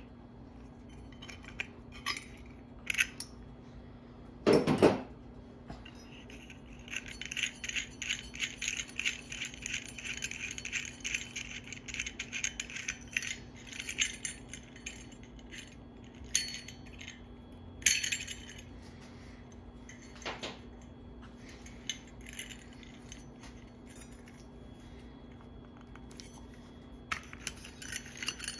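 Metal parts of a ceiling fan's light kit and switch housing clinking and rattling as they are unscrewed and handled, with one louder knock about four seconds in and a fast run of small clicks in the middle. A faint low hum runs underneath.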